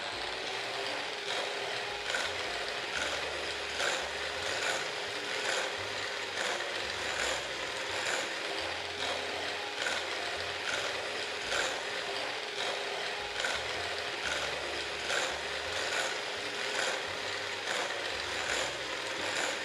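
Electric hand mixer running steadily with its beaters whipping cream in a glass bowl, with a regular clicking about once a second. The cream is being beaten toward stiff peaks.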